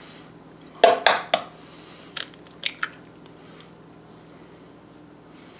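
A raw egg being cracked open over a mixing bowl: a few sharp cracks of the shell about a second in, then lighter clicks as the shell is pulled apart and the egg drops onto the raw ground beef.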